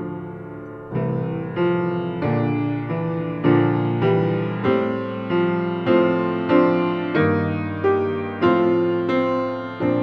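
Slow piano music: chords struck at a steady pace, a little under two a second, each ringing and fading before the next.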